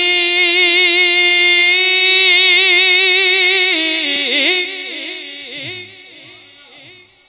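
A man singing an Urdu devotional rubai unaccompanied: one long held note with vibrato for nearly four seconds, then a falling, ornamented run that fades away near the end.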